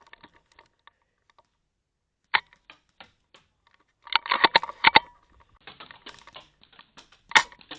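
Airsoft gun shots heard as sharp clicking pops: a single shot about two seconds in, then a quick string of shots about four seconds in, with fainter scattered shots after.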